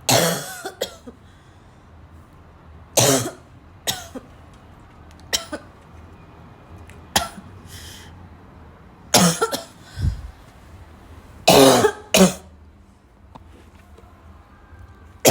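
A person coughing hard, with harsh, barking coughs in ones and pairs every second or two.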